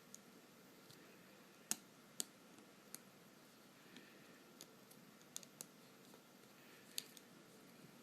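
Faint, scattered small clicks and taps, about six spread over several seconds, the loudest near two and seven seconds in. They come from tiny parts and a tool being handled while a flex cable is fitted into an iPhone's connector slot, against quiet room tone.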